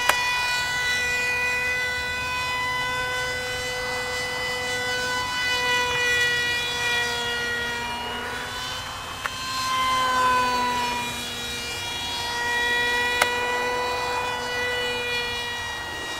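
Mini Horten RC flying-wing model plane's motor and propeller running in flight: a steady buzzing whine whose pitch wavers a little as the plane banks and passes.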